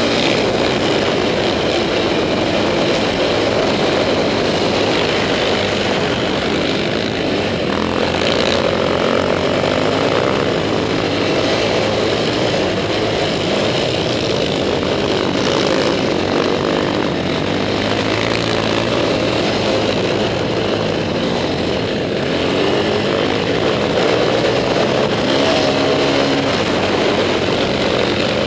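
Can-Am DS450X quad's single-cylinder 450 four-stroke engine running under load across sand, its pitch rising and falling with the throttle.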